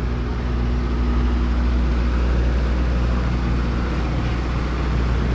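An engine running at a steady speed: a loud, even low hum that does not change in pitch.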